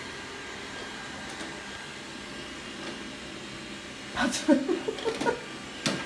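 Robot vacuum running steadily while it sweeps and maps the rooms on its first run. About four seconds in, a few louder, irregular sounds break over the running noise.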